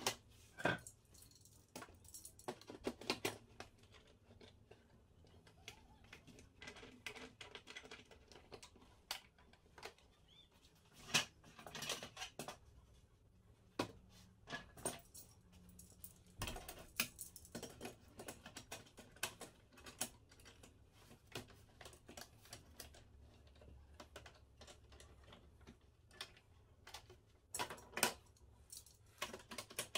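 Irregular light knocks and clicks of plywood panels and metal clamps being handled and set while a plywood box enclosure is clamped up. The sharpest knocks come near the start, a few times in the middle and near the end.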